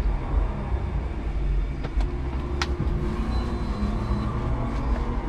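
A 5-ton electric forklift truck running and driving, heard from its cab: a steady low rumble with a wavering motor hum. Two sharp clicks come about half a second apart midway through.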